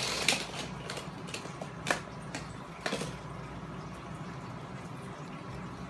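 A few light plastic clicks and clacks of small toy cars against a plastic ramp track, about five in the first three seconds, then only a faint steady hum.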